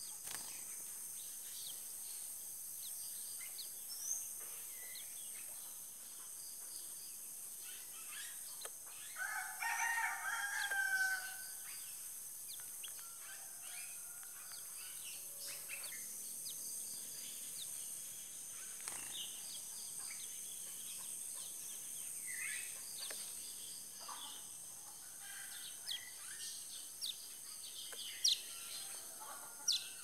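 A rooster crows once, about a third of the way in, the loudest sound here. Around it runs a steady high hiss, with scattered short, high chirps from small birds.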